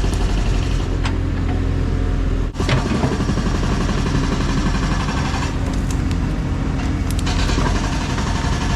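Excavator's diesel engine running steadily under load while it works a rotten tree stump out, with a few sharp knocks and cracks over the engine.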